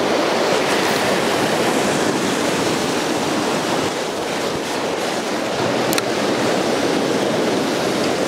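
Ocean surf washing steadily against a rocky shoreline, with a single sharp click about six seconds in.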